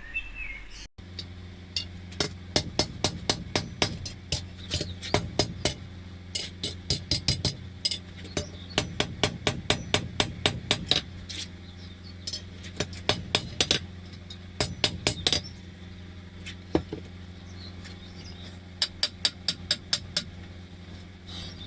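Blacksmith's hammer striking iron, in quick runs of ringing blows broken by short pauses, over a steady low hum.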